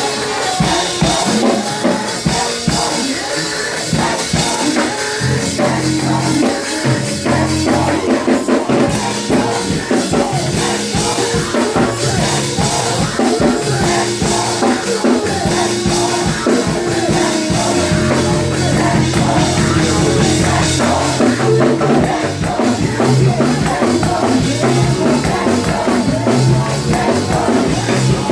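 Live praise and worship music: a band with drum kit playing while singers sing.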